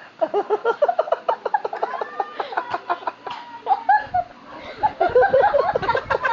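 A toddler giggling in quick, high-pitched cackling bursts, several a second, with a short pause a little past the middle before it picks up louder again.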